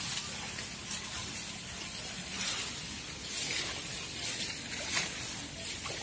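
Fern fronds and shrub leaves rustling and swishing as someone pushes through dense vegetation on foot, in a string of brief swishes, the sharpest about five seconds in.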